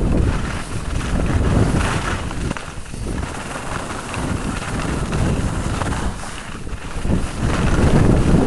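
Wind buffeting the microphone of a camera moving downhill at speed, with the hiss of board and ski edges carving through packed snow. Both swell and ease in waves with the turns.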